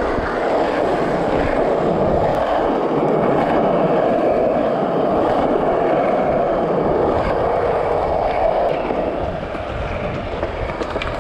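Skateboard wheels rolling on street asphalt: a loud, steady rumble that eases off near the end.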